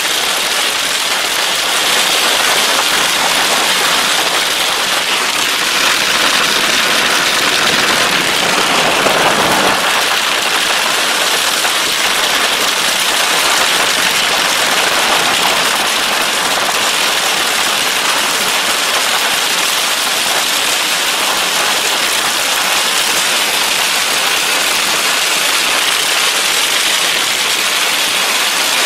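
Torrential wind-driven storm rain pouring down, a dense steady hiss that grows louder for a moment about nine seconds in.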